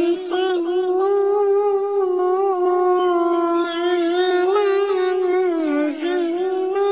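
A single high voice singing an unaccompanied sholawat melody, holding long notes with a wavering, ornamented pitch, with a brief dip about six seconds in.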